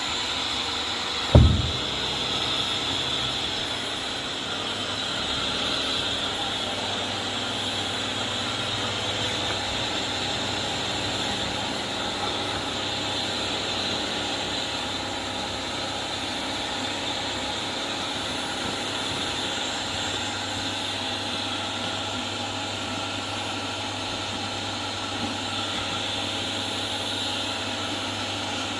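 Vax Air Steerable Max upright vacuum cleaner running steadily while vacuuming a test spill of dirt and larger particles. A single sharp thump comes about a second and a half in, the loudest moment.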